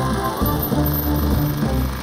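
Background music with a steady bass line and held notes.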